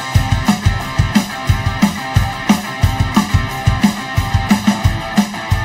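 Rock music with a steady drum beat and guitar.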